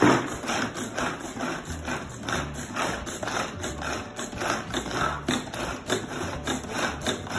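Hand-pull food chopper worked with rapid repeated tugs on its cord: each pull spins the blades inside the jar with a short whirring clatter, in a quick steady rhythm.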